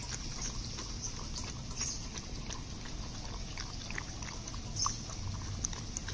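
Puppy lapping and smacking at fish soup with rice in a steel bowl: irregular wet clicks and slurps, over a low steady rumble.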